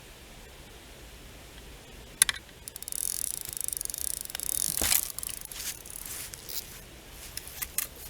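Fishing reel clicking: a sharp click, then a quick run of rapid ratcheting clicks lasting about two seconds, then a few scattered clicks.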